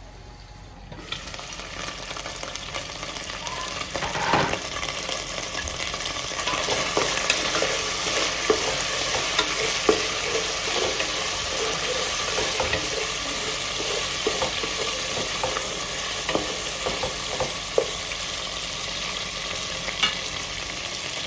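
Chopped chicken pieces frying in a little hot cooking oil in a covered pot: a steady sizzle with scattered pops, starting about a second in and building up. A single knock about four seconds in.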